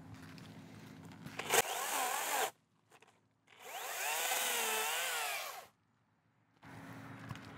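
Makita 18-volt battery top-handle chainsaw cutting a tree limb in two bursts, the second about two seconds long, its motor whine wavering in pitch as the chain bites. A sharp click starts the first burst.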